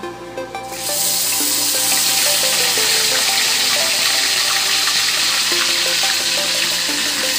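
Milkfish frying in hot oil in a wok-shaped pan: a loud, steady sizzle starts about a second in as the fish is slid into the oil and keeps going. Background music plays underneath.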